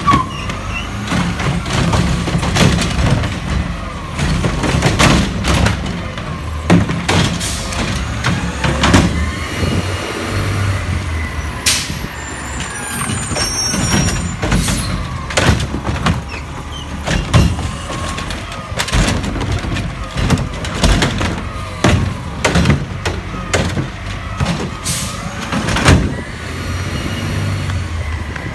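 Garbage truck at work: a diesel engine rumbling steadily, with many sharp clanks and bangs scattered throughout.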